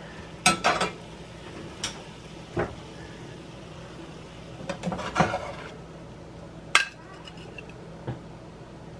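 Metal spatula scraping and knocking against a cast-iron skillet and a ceramic plate as cooked greens are stirred and scooped out: a series of sharp scrapes and clinks, bunched together about five seconds in.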